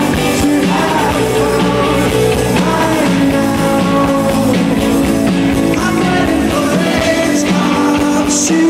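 A live rock band playing a song with a singer's voice over it, loud and steady throughout.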